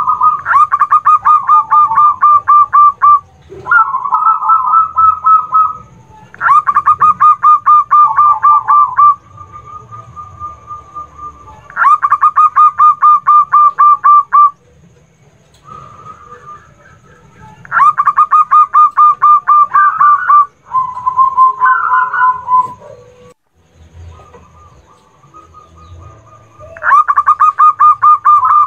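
Zebra dove (perkutut) song: bouts of rapid, evenly repeated notes, roughly ten a second and each bout two to three seconds long, recurring about seven times. Softer, steadier calls fill the gaps between bouts.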